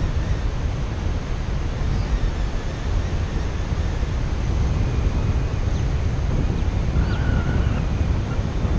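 Wind buffeting a camera microphone on a paraglider in flight: a steady rush of airflow, heaviest in a low rumble.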